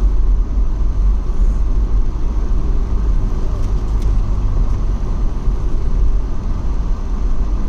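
A vehicle driving and turning, heard from inside: a steady low rumble of engine and road noise.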